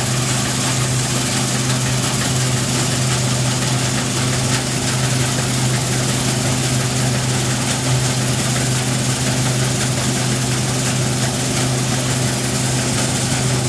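New Holland CX8070 combine harvester running steadily: an even engine drone with a strong low hum and a hiss of machinery above it.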